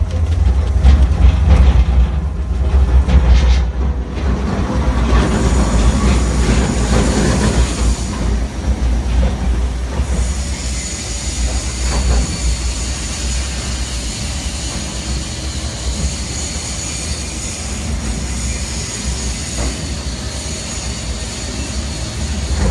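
XR700 single-shaft industrial shredder running under load, shredding books: a heavy steady low hum under uneven grinding. The grinding is louder and rougher over the first several seconds, then settles into a steadier run with a thin high whine.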